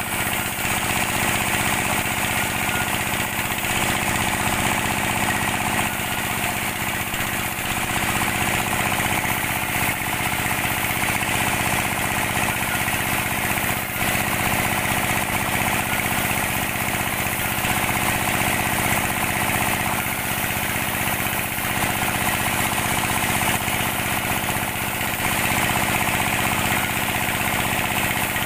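A sawmill band saw driven by belt from a stationary engine, running steadily with a fast, even pulse and a constant whirr of the machinery.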